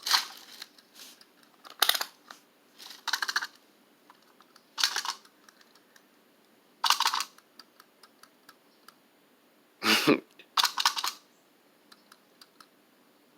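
A series of about seven short rustling, scraping handling noises, with faint scattered ticks between them.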